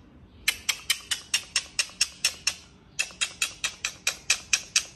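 Rapid, evenly spaced light clicking, about five ticks a second, in two runs with a short pause between.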